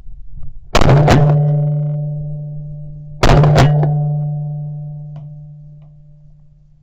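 Two shotgun blasts about two and a half seconds apart, each followed by a low ringing tone that dies away over a few seconds.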